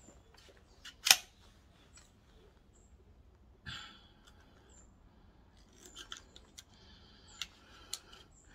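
Metal parts of an AP80 AK-style rifle being handled and worked: a sharp metallic clack about a second in, then quieter clicks and scrapes, with a run of small clicks in the second half. The rifle's bolt sticks, which the owner thinks may be down to springs a bit strong for it.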